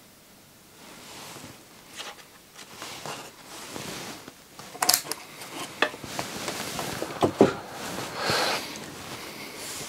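Hands handling small electrolytic capacitors and clip test leads on a workbench: soft rustling broken by several sharp clicks and taps as a capacitor is unclipped from the meter leads and parts are set down.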